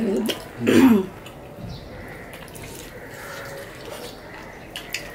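Close, wet eating sounds of people eating rice and curry with their hands: small clicks of chewing and lip smacks over a soft squelch of rice being mixed between fingers. A brief voice sounds a little under a second in.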